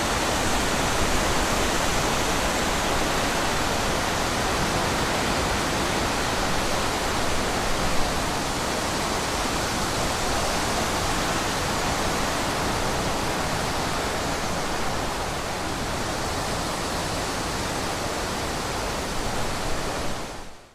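Wind blowing steadily through forest trees, an even rushing noise that fades out right at the end.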